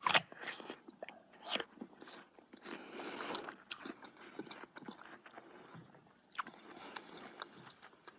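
A person biting into and chewing crunchy food close to the microphone. A loud crunchy bite comes right at the start, then irregular crunching and crackling with many small sharp clicks.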